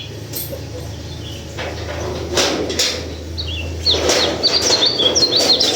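White-eye (pleci) singing a quick run of short, high, falling chirps from about halfway through, over a low steady hum and a few rustling noises.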